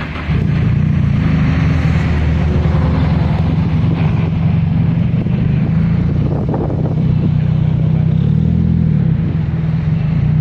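Race car's engine idling loud and steady, stepping up suddenly in loudness a moment in, its pitch wavering a little now and then.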